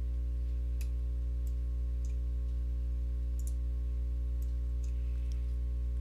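A computer mouse clicking now and then, about seven light, irregular clicks, over a steady low hum.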